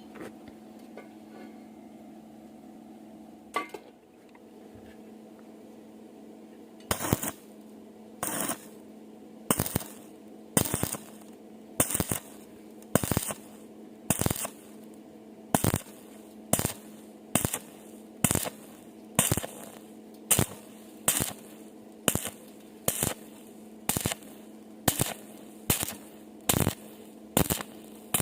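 A hammer striking steel about once a second, in a steady series of sharp metallic knocks that starts about a quarter of the way in, over a steady electrical hum.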